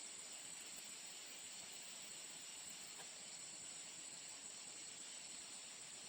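Faint, steady high-pitched drone of insects such as crickets, unbroken throughout.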